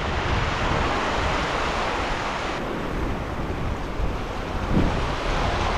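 Ocean surf washing and churning over a lava-rock reef, a steady rush of water, with wind buffeting the microphone.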